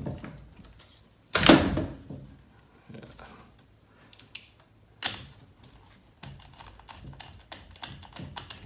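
Hands working hard plastic parts of a radio-controlled truck on a workbench: scattered small clicks and taps, with a louder clatter about one and a half seconds in and a single sharp click about five seconds in.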